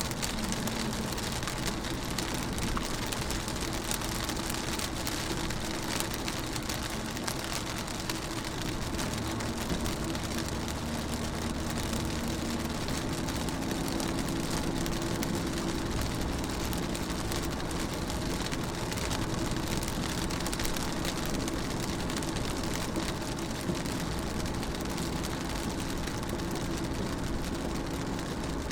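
Rain pattering on a car window, heard from inside the car as a steady hiss of many small drop ticks. A low steady hum sits underneath.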